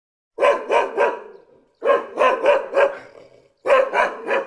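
A dog barking in three quick runs of three to five barks each, about four barks a second.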